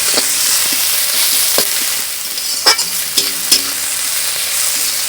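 Chopped onions sizzling in hot oil in a pan, fried until brown, while a spatula stirs them and knocks against the pan several times.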